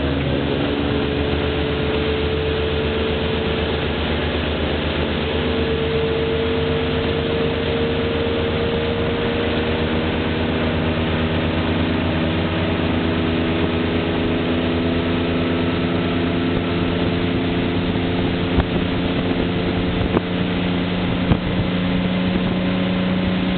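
Motorboat engine running steadily at speed while towing a tube, its pitch creeping slowly upward, over the rushing of the wake and wind. A few small knocks sound near the end.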